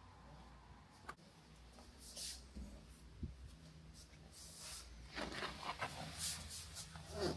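Soft rustling and a few light knocks as a fabric curtain is pushed aside by hand. The rustling grows busier over the last couple of seconds.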